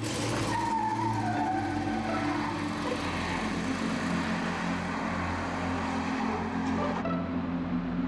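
Large SUV accelerating away hard, engine running and tyres squealing as it turns. The noise cuts off sharply about seven seconds in, over a low steady music bed.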